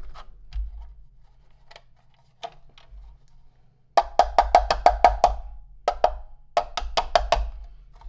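Sharp clicks and knocks from the hollow plastic duct housing of a Lindhaus HF6 canister vacuum being pried and flexed with needle-nose pliers. About halfway in comes a quick run of about eight clicks a second, each with a short hollow ring, then two shorter groups.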